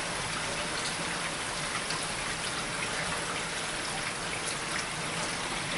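Steady rain falling as a thunderstorm winds down, an even hiss with scattered individual drop ticks.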